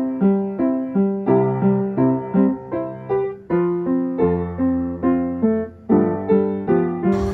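Background piano music: a melody of evenly paced notes, about three a second, with a deep bass note held for a couple of seconds about four seconds in.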